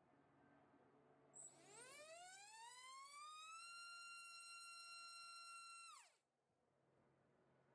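XNOVA RM1407-3500KV brushless motor on a thrust stand, spinning a GF 3545 bullnose prop: a whine that rises over about two seconds as the throttle is ramped up. It holds steady near 41,000 rpm at full thrust for about two seconds, then falls away quickly as the throttle is cut.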